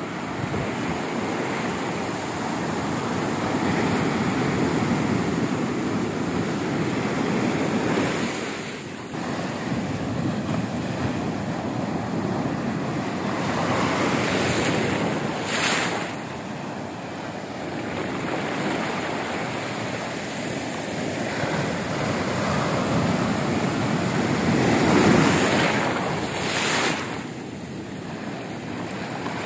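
Ocean surf: waves breaking and foam washing over the sand, the noise swelling and easing as each wave comes in. Wind buffets the microphone, with short sharp gusts around the middle and near the end.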